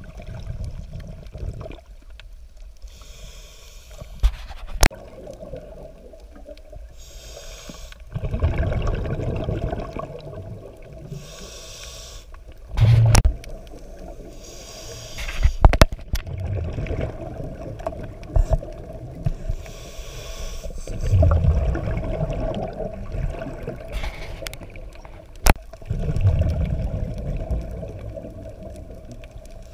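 Scuba diver breathing through a regulator underwater: hissing inhalations alternating with louder, low bursts of exhaled bubbles every few seconds, with a few sharp clicks.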